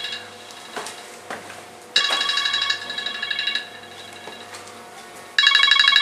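Mobile phone ringtone from inside a microwave oven with its door left open, so the call gets through: a fast-pulsing ring in bursts of about a second and a half, one ending just as it begins, then two more, about three and a half seconds apart.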